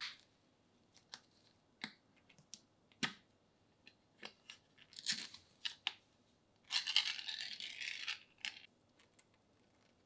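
Ring-pull lid of a Spam can being opened: a string of small metallic clicks as the tab is worked up, then a tearing scrape lasting about a second and a half, some seven seconds in, as the lid is peeled off.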